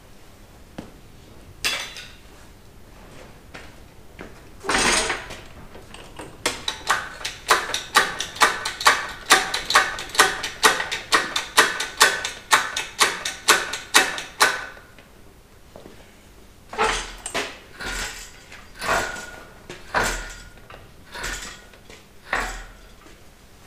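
Metal knocking and clanking: a fast, even run of ringing strikes, about two or three a second for some eight seconds, then a few slower, separate knocks.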